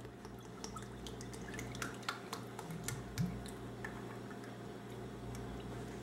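Coconut milk poured from a small glass bottle into a plastic blender jug: a quiet pour with small drips and ticks, dying away about four seconds in.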